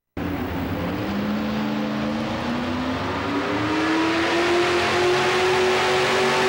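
Modified 4x4 pulling truck's engine revving at the starting line, its pitch climbing slowly and steadily, a little louder from about four seconds in.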